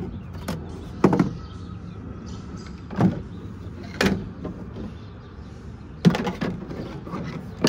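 A Milwaukee Packout hard plastic tool case being handled, with about five separate knocks and clunks as its lid, latches and parts are moved, over a steady low hum.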